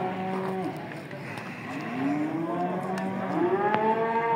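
Cattle mooing, several long drawn-out moos one after another and overlapping, rising and falling in pitch.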